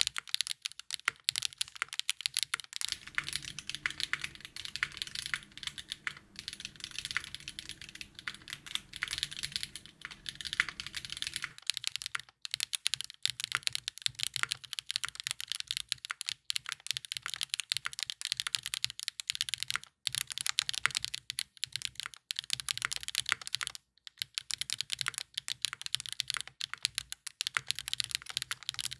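Typing on a Chosfox Fox65 custom mechanical keyboard built with Catmint 50g switches on an FR4 plate, no foam, gasket/top-mount structure and GMK Rainy Day keycaps: a fast, steady run of keystrokes with a few short breaks.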